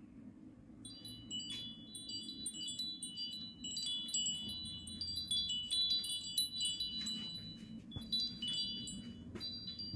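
Chimes tinkling: many quick, overlapping high ringing notes that begin about a second in, over a steady low rumble.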